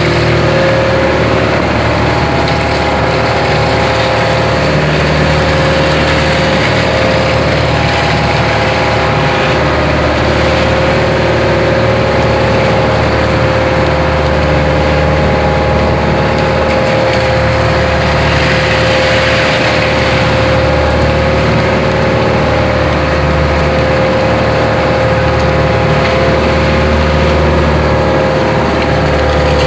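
Fishing boat's engine running steadily, with a constant low drone and a steady hum on top.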